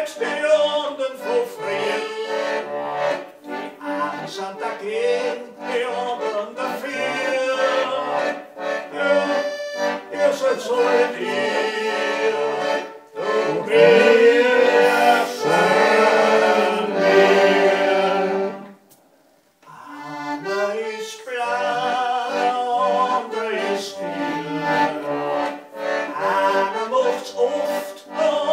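Accordion playing a Viennese song (Wienerlied), with the player singing over it in places. The music breaks off briefly about two-thirds through, then picks up again.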